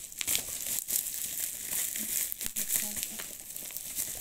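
Plastic bubble wrap crinkling and crackling as it is pulled off a package by hand, full of small sharp crackles.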